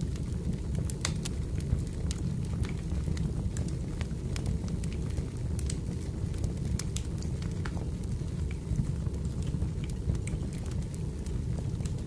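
Crackling wood fire: irregular sharp pops and snaps over a steady low rumble.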